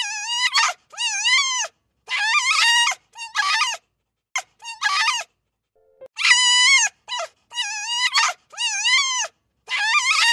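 Wolf giving a run of short, high, wavering yips and howls, each under a second, with brief silent gaps between them. About halfway through, the same run of calls starts over, like a looped recording.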